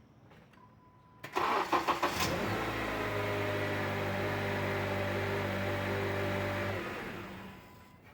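Honda Accord engine cranked by the starter for about a second, catching and idling steadily for about four seconds, then dying away near the end. Restarted after only a short stop, it starts without the loud startup noise it makes after sitting half an hour or more, which the owner likens to the timing chain.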